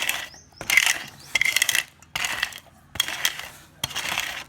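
Cumin and coriander seeds being crushed by rubbing a bowl over them: a gritty, scraping crunch in about six repeated strokes.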